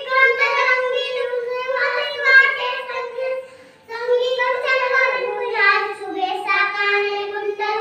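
Young children's voices singing a devotional prayer in a sing-song chant, with a short break for breath about three and a half seconds in.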